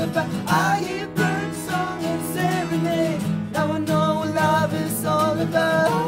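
Two acoustic guitars strummed in a steady rhythm, with male voices singing over them in an unplugged pop-folk song.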